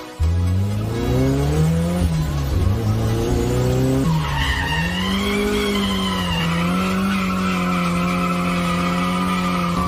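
Drift car engine revving hard from inside the cabin: the pitch climbs twice in the first few seconds, then the car slides with tyres squealing in a high, wavering note from about four seconds in. From about six and a half seconds the engine holds steady high revs through the slide.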